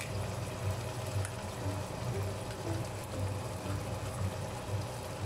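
Chicken strips frying in oil in a nonstick pan: a steady sizzle, with a raw egg cracked into the middle.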